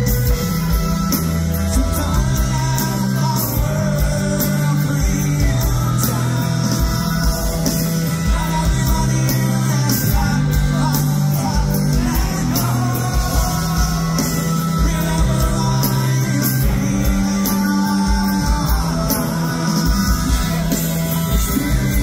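A live rock band playing a song, with a male singer's vocals over electric guitars, bass and drums, heard loud and steady through the concert sound system from within the crowd.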